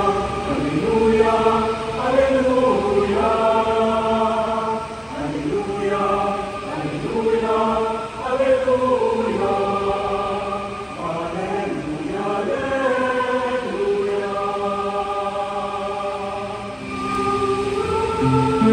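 Mixed chamber choir of men and women singing a hymn in sustained chords, phrase after phrase a few seconds long.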